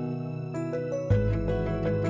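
Background music: a gentle instrumental with sustained notes, a deep bass note coming in about halfway through.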